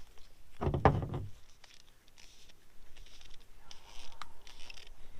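Handling of plastic pipe fittings: a heavy knock about a second in, then light clicks and soft rustling as thread tape is worked onto the threads.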